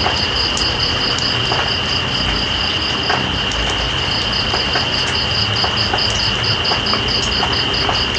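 Night insects over steady rain: one trills in rapid pulses, about four or five a second, pausing briefly near the middle, while another holds a continuous high whine.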